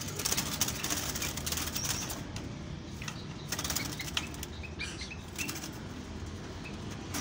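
Fluttering and rattling in a wire dove cage as hands fit a nest mesh inside it. It is densest in the first two seconds, then a few short, faint chirps come about four to five seconds in.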